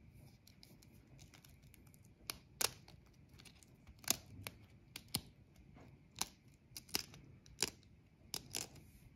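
Shell of a large hen's egg being cracked open by hand: a series of about a dozen sharp little cracks and crunches, irregularly spaced.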